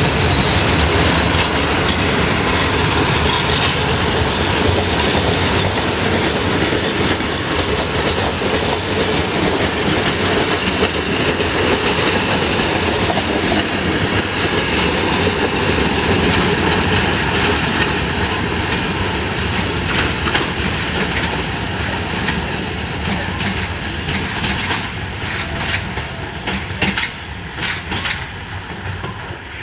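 Passenger coaches rolling past, their wheels clicking over the rail joints. The sound fades steadily as the train pulls away, with a few sharp wheel clicks near the end.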